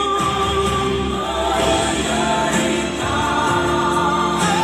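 Christian worship song with voices singing long held notes over instrumental accompaniment.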